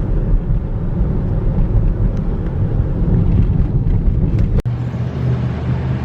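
Steady low rumble of a car cabin while driving: road and engine noise. About two-thirds of the way through it breaks off abruptly and resumes as a steadier low hum.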